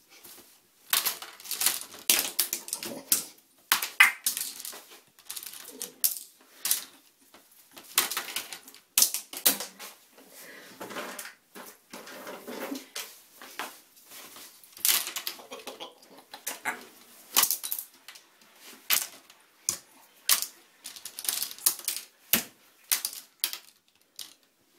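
Plastic clothes pegs clicking and clattering irregularly as an African grey parrot rummages through a plastic basket of them with its beak and tosses some out onto the sink.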